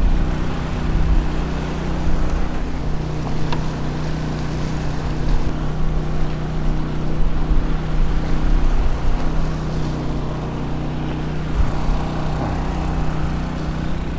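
Small Honda 2000 portable generator running at a steady drone, powering the floodlights, with wind rumbling on the microphone.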